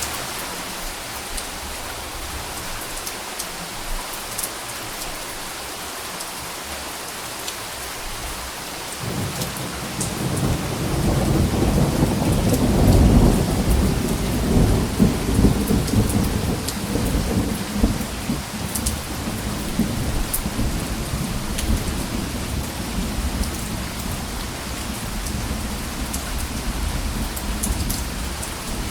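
Steady rain falling, with a low roll of thunder that builds about nine seconds in, peaks a few seconds later and then rumbles on more softly.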